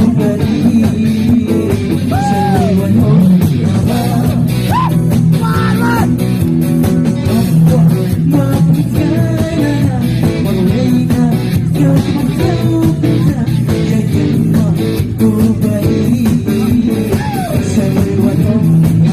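Live rock band playing: a male singer on a microphone over electric guitars, bass guitar and drum kit, loud and steady throughout.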